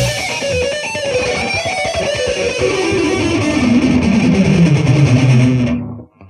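Heavy metal music: an electric guitar plays a line that slides steadily down in pitch over about five seconds, then dies away and cuts off shortly before the end.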